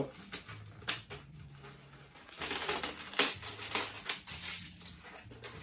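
Cardboard box and plastic packaging being opened and handled: scraping and crinkling with scattered sharp clicks, busiest and loudest about two and a half to three and a half seconds in.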